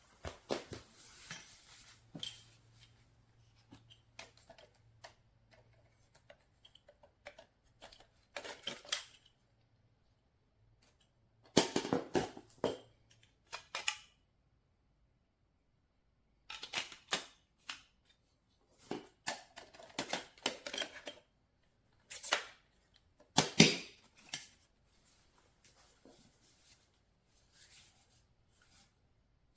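Handling noise: irregular clusters of clicks, knocks and rattles from hard plastic vacuum cleaner parts and accessories being picked up and put down, with short quiet gaps. The loudest knocks come about twelve seconds in and again a little after twenty-three seconds.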